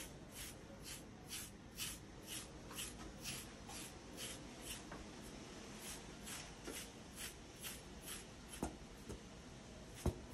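Faint rhythmic strokes of a medium carding knife raking through a cocker spaniel's coat, pulling out the dull undercoat, about two strokes a second. A couple of light knocks come near the end.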